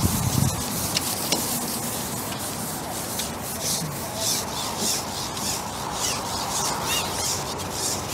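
Carbon fishing pole rubbing and sliding as it is shipped back while a fish is on, making repeated scraping swishes. A few sharp clicks come in the first second or so.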